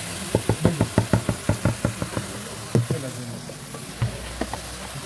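A quick run of about a dozen knocks as roasted tomatoes are knocked out of a plastic bowl into an aluminium cooking pot, then a louder single knock and a few more knocks as a wooden spoon starts stirring them in the pot.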